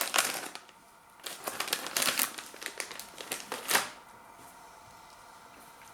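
Takis snack packet crinkling as it is handled, in bursts of rapid crackles that stop about four seconds in.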